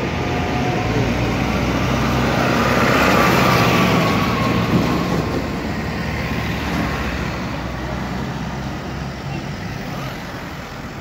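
Tractor engines running as tractors drive past in a column, growing fainter toward the end as they move away.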